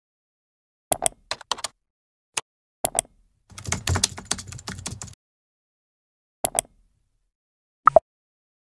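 Computer keyboard typing sound effects, with dead silence between them: a few separate key clicks, then a quick run of typing lasting about a second and a half. A quick double click follows, and near the end a short pop that drops in pitch.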